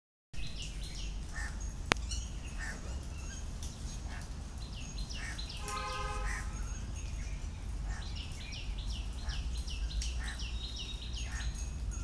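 Birds calling over and over, short high chirps coming several times a second, with one lower, fuller call about six seconds in. A steady low rumble runs underneath, and there is a single sharp click near two seconds.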